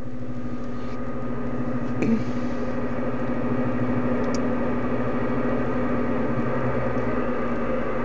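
Uniden HR2510 radio receiver giving out steady static with a low hum through its speaker on an open channel, with no station transmitting.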